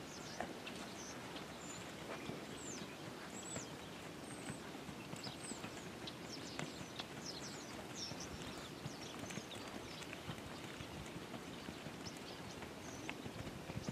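Hoofbeats of a black Tennessee Walking Horse mare moving at a gait under saddle on sandy arena footing: a steady run of soft, muffled hoof falls.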